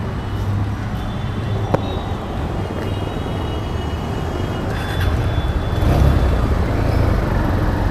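Motorcycle riding in traffic: a steady low engine hum under wind and road noise, with one sharp click a little under two seconds in, growing a little louder near the end.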